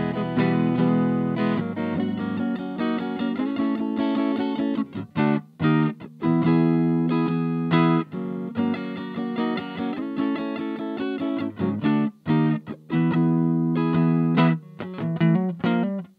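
Electric guitar played through a Little Rebel 2-watt amplifier kit into a Jensen CR8 speaker in an old Sunn cabinet: picked single notes and chords, broken by a few short pauses between phrases.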